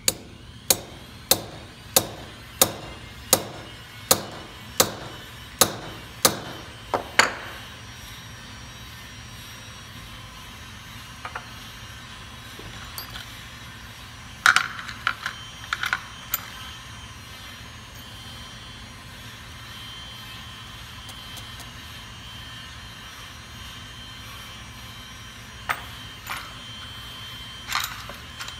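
A hammer tapping a steel rivet-setting punch about a dozen times, a little faster than one strike a second, setting the rivet that holds a pin-back finding on a copper leaf brooch. About halfway through and again near the end come a few lighter metallic clinks of the piece being handled.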